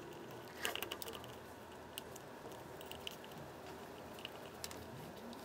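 Light, scattered clicks and taps of a hard plastic pocket piece being pressed and fitted into a pool table's corner pocket.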